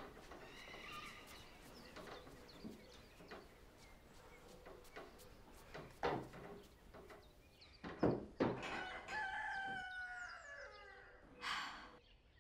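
A rooster crowing: one long call falling in pitch, about nine seconds in. A few sharp knocks come just before it and are the loudest sounds.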